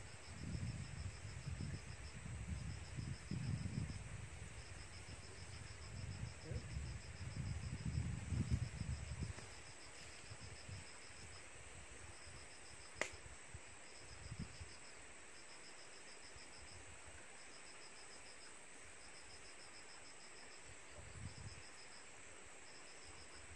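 Insects chirping in short trains of rapid pulses, repeating through the whole stretch. Under them, a low gusty rumble on the microphone for the first nine seconds or so, and a single sharp click about thirteen seconds in.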